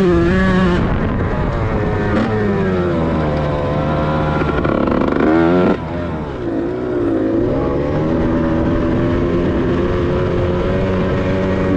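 Kawasaki Ninja two-stroke grasstrack engine being revved with the throttle, its pitch rising and falling. About five seconds in it revs up sharply and cuts off suddenly, then runs on at lower, steadier revs.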